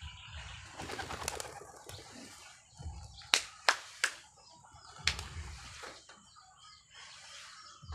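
Pigeons at a loft flapping their wings and cooing. Four sharp knocks about three to five seconds in are the loudest sounds.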